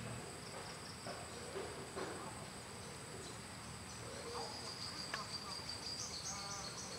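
Steady high-pitched insect chorus, with a pulsing trill joining about five and a half seconds in. A few faint short calls and a single tick sound over it.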